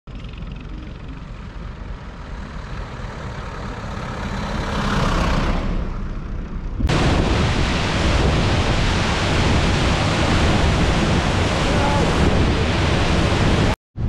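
Waterfall roaring: a loud, steady rush of falling water that starts abruptly about seven seconds in, after a quieter stretch of outdoor noise that swells around five seconds in.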